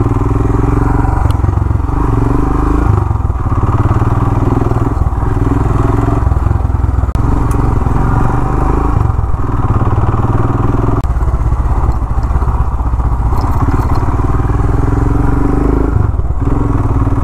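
Royal Enfield Himalayan's single-cylinder engine running at low speed on a rough dirt track, the note easing off and picking up again every second or two.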